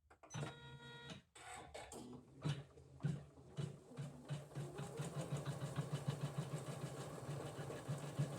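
Janome Atelier 9 computerized sewing and embroidery machine starting an embroidery run: a short whine about half a second in, then the needle stitching, sparse at first and then at a fast, steady rhythm from about halfway through.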